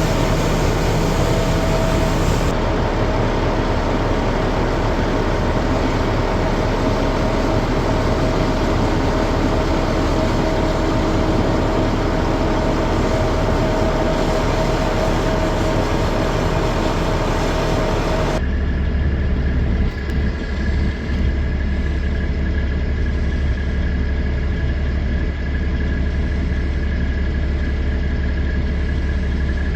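A truck running with steady engine and road noise and a faint constant tone. About two-thirds of the way through it cuts abruptly to a heavy engine idling with a deep steady hum and a thin high tone.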